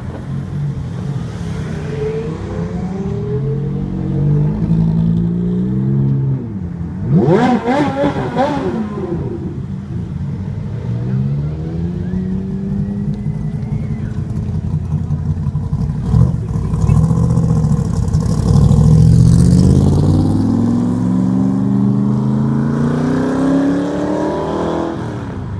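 Supercar engines revving and pulling away, rising and falling in pitch through several gear changes. A sharp, loud rev comes about seven seconds in, and another engine builds up near the end.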